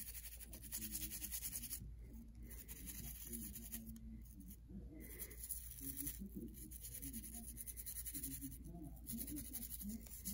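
Stiff-bristled brush scrubbing a Tyco Power Torque model-train motor block coated in degreaser: faint, repeated scratching strokes with brief pauses.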